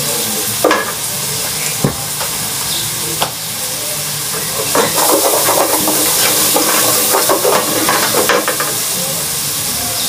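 Garlic frying in hot oil in a pot, a steady sizzle. A few sharp knocks on the pot in the first three seconds, then a stretch of stirring and scraping in the pot in the middle.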